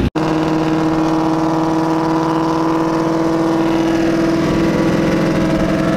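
Car engine droning at a steady cruise, heard from inside the cabin, its pitch holding nearly constant with a slight shift about four seconds in.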